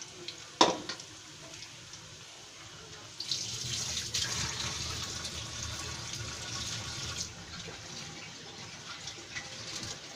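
Vegetable pakoras deep-frying in hot oil in a karahi: a steady bubbling sizzle that grows suddenly louder about three seconds in and eases again a few seconds later. A single sharp knock just over half a second in.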